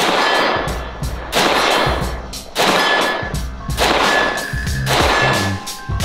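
Stag Arms 10S AR-10 rifle in .308 firing shot after shot, about one every second and a quarter, each with a trailing echo, over background music with a low beat.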